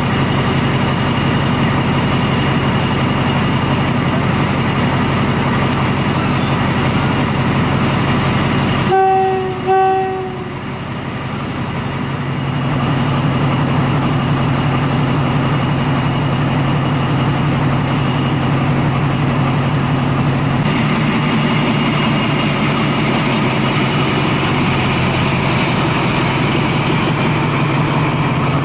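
KTMB Class 24 diesel locomotive engine running steadily. Two short horn toots sound close together about a third of the way in, and they are the loudest thing heard.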